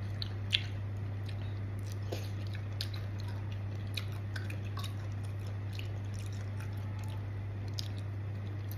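Close mouth sounds of a person chewing a wet, spicy salad of santol and raw shrimp: soft smacks and scattered small clicks, a sharper one about half a second in, over a steady low electrical hum.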